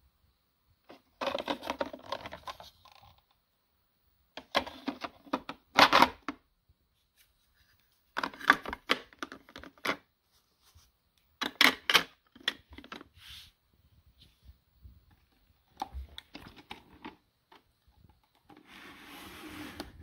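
Plastic drip tray of a capsule espresso machine being pulled out, handled and pushed back in, clicking and rattling in about five short bursts with pauses between, and a softer rustle near the end.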